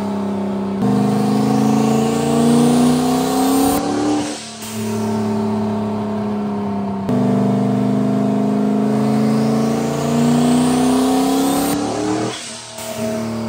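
Turbocharged F-body Camaro's engine making two wide-open-throttle pulls on a chassis dyno: the pitch climbs steadily through the revs for about three seconds, drops off abruptly as the throttle is closed, and climbs again in a second, longer pull starting about seven seconds in.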